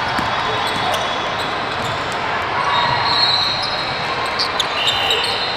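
Basketball game sounds in a large, echoing hall: a ball dribbled on a hardwood court amid steady players' and spectators' noise.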